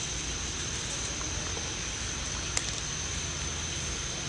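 Steady background hiss and low rumble with a constant high-pitched whine, and a single sharp click about two and a half seconds in, from a knife cutting apple pieces on a paper plate.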